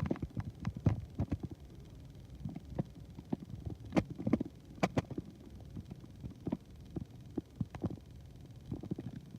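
Plastic K'NEX parts clicking and knocking at irregular intervals over a low hum.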